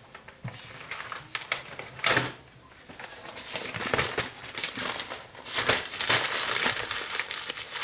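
Sheet of paper being crumpled and rustled by hand in irregular bursts, loudest about two seconds in and again around six seconds.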